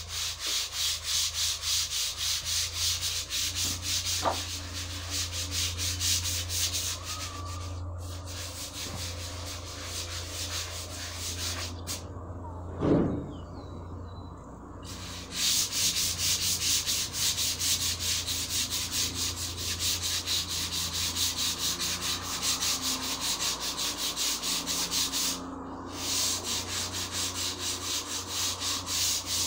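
Sandpaper rubbed by hand over a long, rounded workpiece in quick, rhythmic back-and-forth strokes, with a few short pauses. During the longest pause, about halfway through, there is one short, louder sound.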